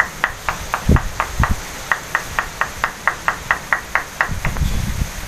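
Strong typhoon wind buffeting the microphone in gusts, with a steady run of sharp, high clicks about four a second throughout.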